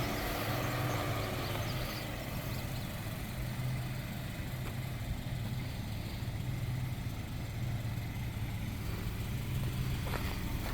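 Car driving at steady speed, heard from inside the cabin: a constant low engine hum with road and wind noise.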